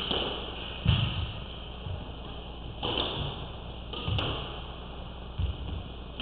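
Squash rally: the ball is struck by rackets and hits the court walls with a sharp knock roughly once a second. The loudest knock comes about a second in.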